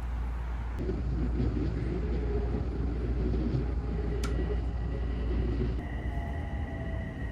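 Steady low rumble of a large vehicle running, with a sharp click about four seconds in and a steady high-pitched squeal coming in near the end.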